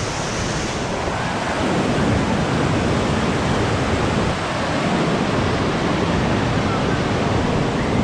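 Steady rush of waterfalls and cascading white water, a little louder from about two seconds in.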